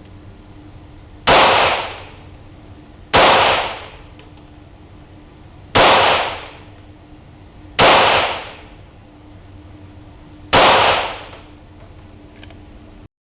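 Five shots of CCI Standard .22 LR fired from a Feinwerkbau AW93 competition pistol held in a Ransom rest, about two to three seconds apart, each ringing out briefly after the report.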